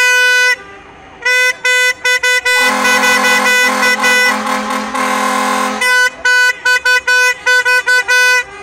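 Vehicle horns honking in a rhythmic run of short toots and held blasts. A second, lower-pitched horn sounds together with the first for about three seconds in the middle.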